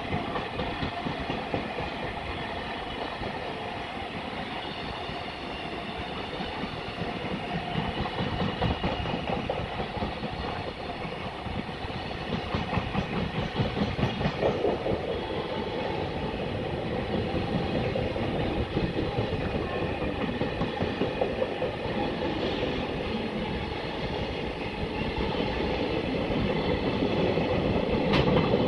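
Freight train running past, its wheels rumbling and clattering steadily on the rails with a steady whine above them, getting louder near the end.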